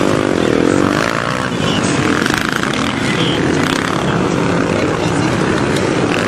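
Motocross motorcycle engines revving, the pitch rising and falling as the bikes race.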